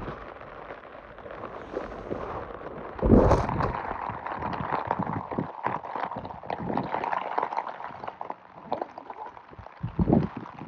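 Heavy rain pattering on tent fabric, with lots of small irregular ticks, along with the rustle and handling of wet gear, and two heavier thumps, about three seconds in and near the end.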